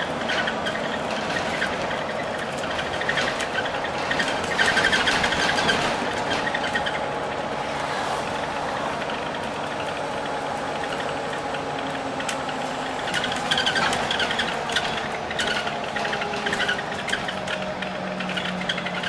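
Interior running noise of an Alexander Dennis Enviro 400 Hybrid (E40H) double-decker bus on the move, from its ADL/BAE Systems hybrid drivetrain: a steady drone with faint whining tones that drift in pitch, and frequent sharp rattles and clicks from the bodywork.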